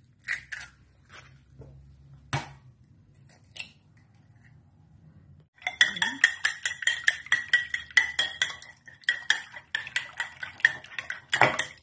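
Eggs being cracked into a ceramic bowl, a few scattered taps and one sharp crack about two seconds in. Then, from about halfway, eggs are beaten fast against the bowl: rapid, continuous clinking of the utensil on the ceramic, each strike leaving a short ringing tone.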